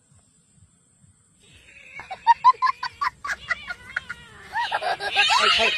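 Laughter in quick, short pitched bursts, starting about two seconds in and getting louder and denser near the end.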